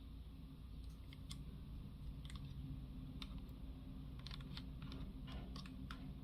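Plastic pieces of a Bandai Ultimagear Millennium Puzzle clicking and tapping against each other as they are handled and fitted back together: a scatter of faint, irregular light clicks.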